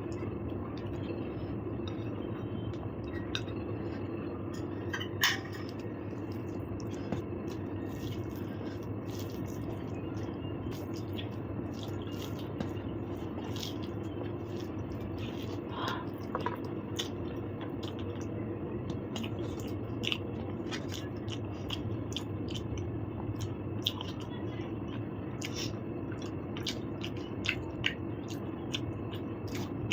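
A person chewing and eating, with many small wet mouth clicks and soft squishy sounds over a steady low hum; one sharper click about five seconds in.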